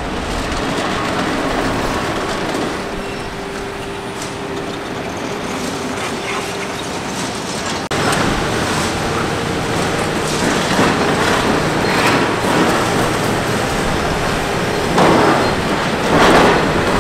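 Hitachi Zaxis 490 excavator working on tunnel demolition: the diesel engine running under load with a steady hydraulic whine. The sound jumps louder about halfway, and two short, louder noises of material breaking or falling come near the end.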